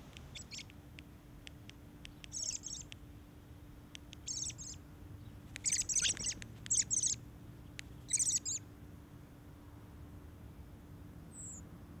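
Fledgling American robins squabbling: about six short bursts of high, rapid chattering calls with scattered single sharp ticks between them, the loudest and densest bursts in the middle.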